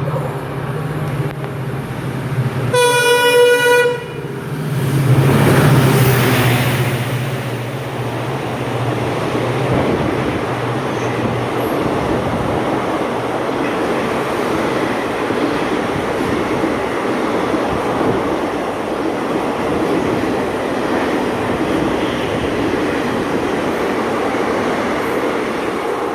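A train horn blows once for about a second, about three seconds in, then a train runs past close by, the steady rush and rumble of its wheels and carriages continuing without a break.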